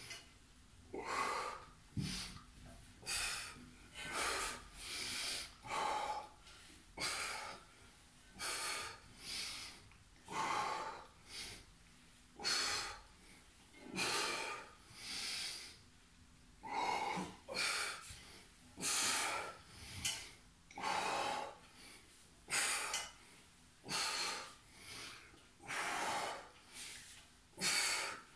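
A man breathing hard and forcefully from exertion, in time with the reps of a seated core exercise: short, noisy breaths about once a second.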